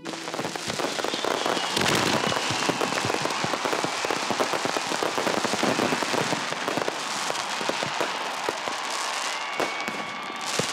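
Fireworks display: dense, continuous crackling and popping of bursting shells. A few whistles slide in pitch, and there are a couple of louder bangs near the end.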